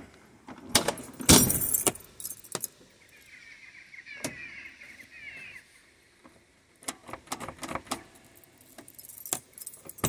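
Land Rover Defender door latch and handle being worked: a loud clunk about a second in, then scattered clicks. A bunch of keys hanging from the hand jangles against the door.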